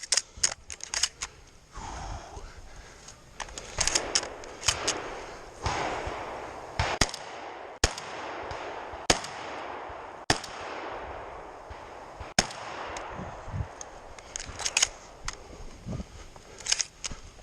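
A shotgun firing a long string of shots, at an irregular pace: quick clusters of cracks, then single louder shots spaced about a second apart through the middle, each with a short ring of echo.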